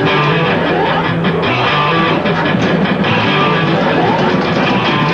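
Loud garage rock music led by electric guitar, with a repeating bass line underneath.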